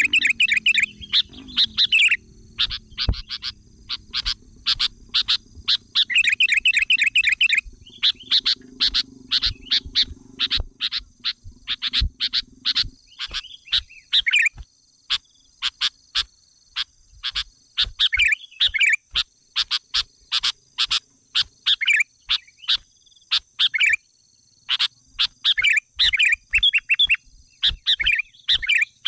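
Small birds chirping repeatedly: many sharp, short chirps and several rapid trills, spread through the whole stretch.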